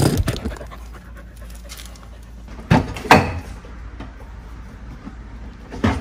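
A dog panting, broken by sharp knocks: one at the start, two close together about three seconds in, and another near the end.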